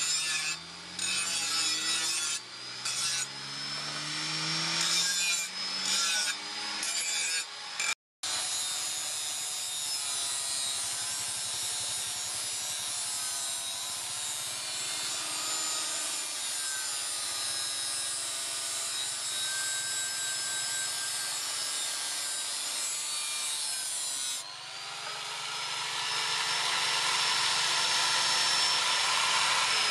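Electric angle grinder with an abrasive disc grinding and smoothing a steel cleaver blade. It starts and stops in short spells for the first few seconds, then runs steadily with its pitch wavering as it is pressed against the steel, and gets louder with a steady high whine near the end.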